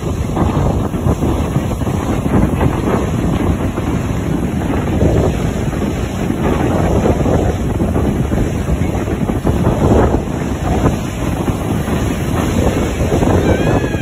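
Ocean surf breaking on the shore under heavy wind buffeting the microphone: a loud, steady rumble that swells every few seconds as waves crash.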